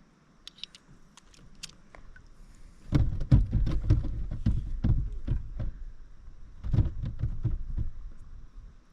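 Knocks and thumps of gear being handled aboard a kayak. A few faint clicks come first, then a run of irregular dull knocks starts about three seconds in.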